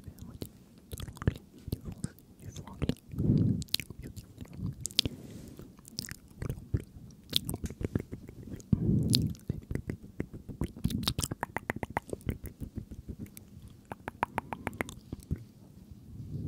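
Close-miked ASMR mouth sounds: wet lip smacks and tongue clicks, with a fast run of clicks about eleven to twelve seconds in. Two louder low breathy bursts come at about three and nine seconds.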